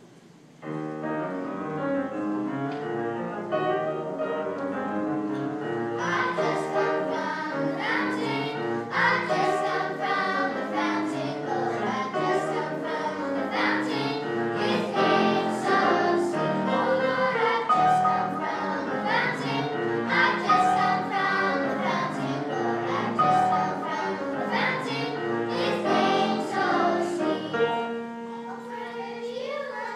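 A small children's choir singing together with instrumental accompaniment; the music starts about a second in.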